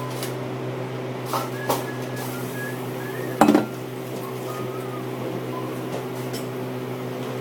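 A metal baking tray going into a galley oven: two light knocks, then the oven door shut with one loud clunk about three and a half seconds in, over a steady low hum.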